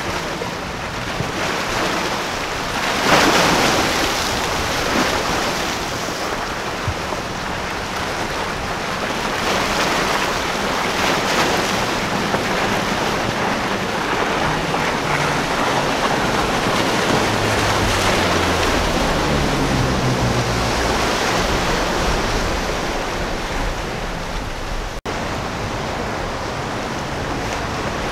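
Waves washing against rocks and wind buffeting the microphone, with a louder rush about three seconds in. A center-console boat's outboard engines drone underneath, sliding in pitch as the boat passes, strongest about two-thirds of the way through.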